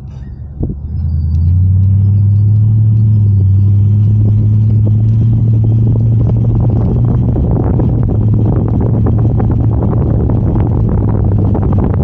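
Vehicle engine running under load: its low drone steps up sharply about a second in, then holds steady, with many small knocks and jolts over the second half.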